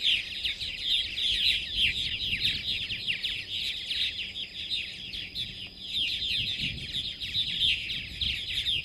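Purple martin colony chattering: many birds calling at once in a dense, continuous chorus of short chirps and downward-slurred notes.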